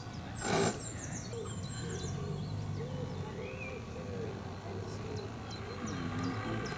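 Small birds chirping in short, high, falling notes, with a low call repeated over and over underneath. A brief loud rush of noise comes about half a second in.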